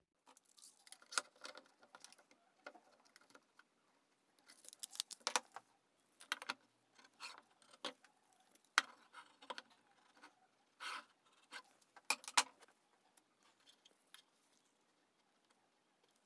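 Irregular light clicks, taps and rustles of hands handling small tools and parts on a wooden workbench, scattered for about thirteen seconds, then fading to faint handling sounds near the end.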